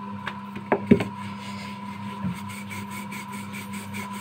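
Samosa dough and a wooden rolling pin knocking against a floured countertop a few times, the loudest about a second in, with one more light knock past two seconds. A steady hum runs beneath.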